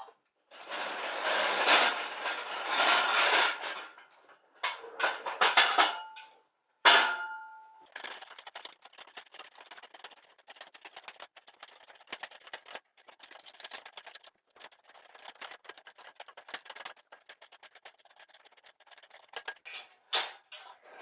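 Metal clattering and handling noise, then a loud ringing metallic clank about seven seconds in, followed by a long run of fast, light ratchet-like clicking.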